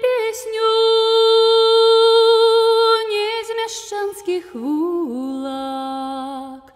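A woman singing unaccompanied: one long high held note for about three seconds, then a downward slide to a lower note that she holds with a slight waver until it stops near the end, with a breath in between.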